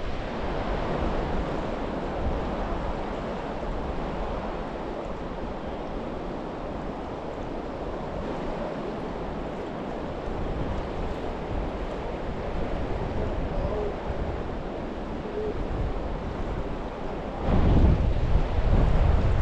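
Steady rush of river water with wind buffeting the microphone, the wind gusting louder near the end.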